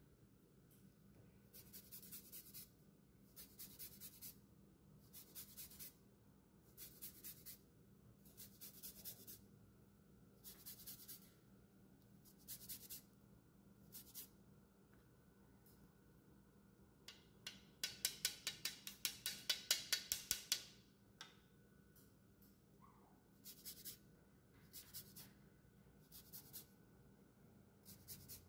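Fine rasp grater scraping food in short strokes. The strokes come slowly, about one every second and a half, then turn into a fast, louder flurry of quick strokes a little past the middle, then slow again.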